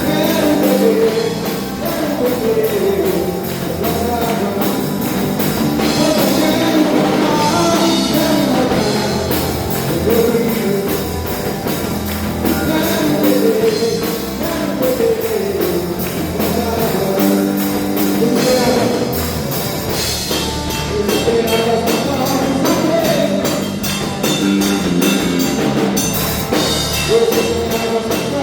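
Contemporary Christian worship music: a sung melody over electric guitar, bass and drum kit, played continuously.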